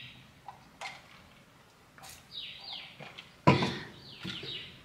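A bird calls in pairs of short falling whistles, about three times. About three and a half seconds in comes a sharp knock as a drinking glass is set down on the kitchen counter, with a few lighter clicks around it.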